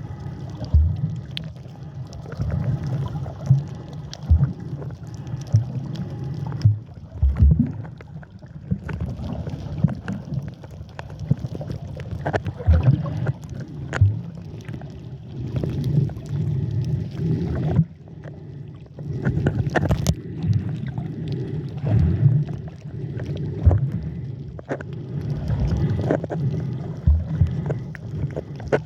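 Muffled water sloshing and gurgling while snorkeling, with frequent low thumps and surges as water moves against the camera.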